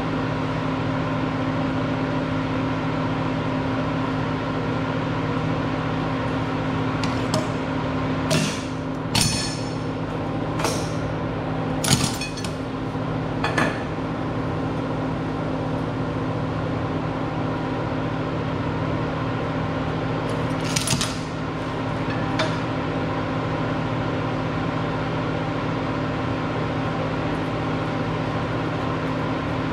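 A steady machine hum with several fixed pitches, broken by a run of sharp metal clanks and knocks about a third of the way in and two more a little past the middle, as metal parts are handled and set down.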